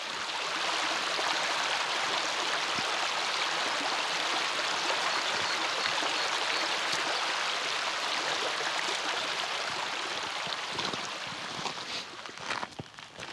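Small stream rushing and splashing over stones, a steady hiss of running water that fades in at the start and dies away near the end, with a few sharp clicks or knocks in the last seconds.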